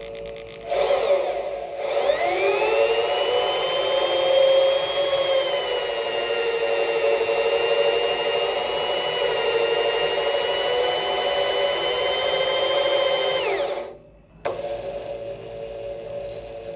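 Electric drill running, with a twist bit boring into painted sheet metal. The motor whine climbs in pitch about two seconds in and holds steady. It cuts off abruptly about fourteen seconds in, then starts again and begins to rise near the end.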